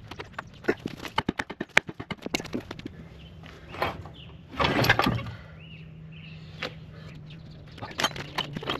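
Steel track frame and bogie-wheel assembly being rolled out on a floor jack: rapid clattering and knocks from the jack's wheels over rough pavement for the first couple of seconds, then a louder scrape about five seconds in.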